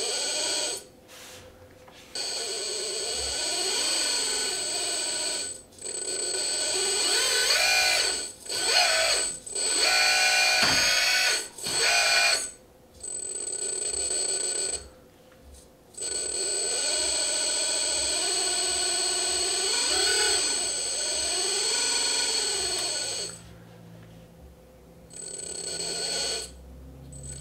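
Electric hydraulic pump of a Kabolite 336 1/16 RC hydraulic excavator whining as the boom, arm and bucket are worked. It cuts out and starts again several times as the sticks are let go and pushed, and its pitch bends up and down with the moving load.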